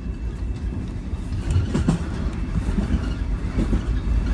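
Toronto Rocket subway train running on open surface track, heard from inside the car: a steady low rumble with a few wheel clicks over the rails about a second and a half in.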